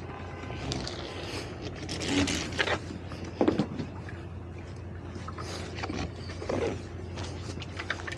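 Scattered knocks and clatters of line handling at a boat's bow, loudest about two to three and a half seconds in and again near six and a half seconds, over a steady low hum of idling boat engines.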